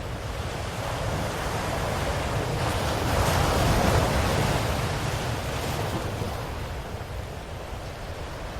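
Ocean waves washing onto a shore: a steady rush of surf that swells to a peak about three to four seconds in, then ebbs away.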